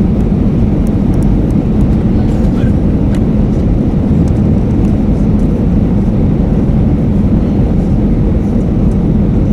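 Airbus A320 cabin noise: a loud, steady rush of airflow and engine rumble, with an even low hum underneath.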